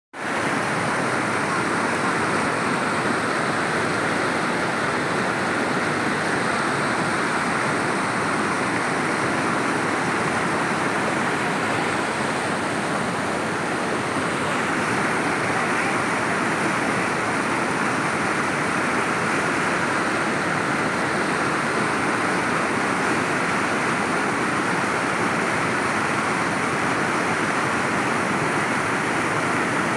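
A muddy flash-flood torrent rushing and churning, a steady, even noise of fast-moving water.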